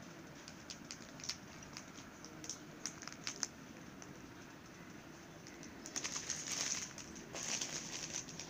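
Clear plastic saree packaging crinkling as the wrapped packets are handled: scattered crackles at first, then two denser bursts of rustling about six and seven and a half seconds in.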